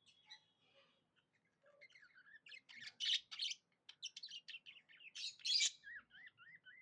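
Budgies (budgerigars) chirping and warbling: a rapid run of short chirps and wavering notes that starts quietly and grows busier after a second or so, with louder harsh squawks about three and five and a half seconds in.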